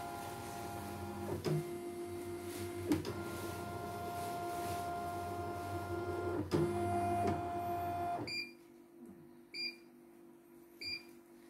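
CNY E900 embroidery machine's hoop-drive motors whining as the embroidery unit moves the hoop around the edge of the design area in an area check, the note changing at each turn and stopping about eight seconds in. Then three short beeps from the machine's control panel keys.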